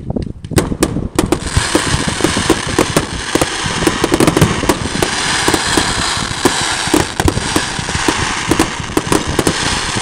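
Aerial fireworks going off in rapid succession: a dense barrage of booms and sharp reports that builds within the first second or so into continuous crackling.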